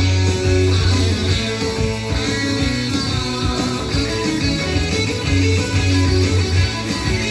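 Hard rock music with electric guitar and bass playing from a vinyl record on a turntable.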